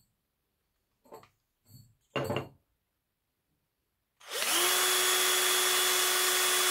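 A cordless drill spins a bicycle dynamo at one steady speed, not at full speed, starting about four seconds in. Before it come a few brief handling knocks.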